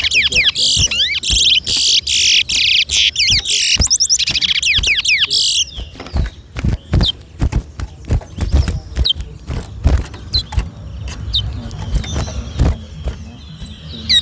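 Towa-towa seed finch singing a fast, dense run of high, rapidly sliding whistled notes as a race song. The song stops about six seconds in, leaving only a few scattered single notes among sharp knocks.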